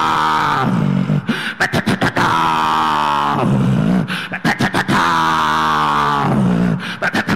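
A man praying aloud in tongues: long held vowels alternating with bursts of quick, clipped syllables in a loud, strained voice.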